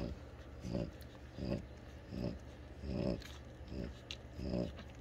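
Noisy breathing of a nursing French bulldog mother through her short nose, at an even pace of about one breath every three-quarters of a second, six breaths in all.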